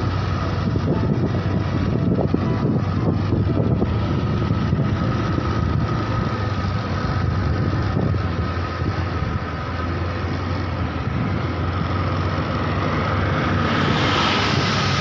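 Steady motor-vehicle engine hum and road noise. A brighter hiss swells near the end.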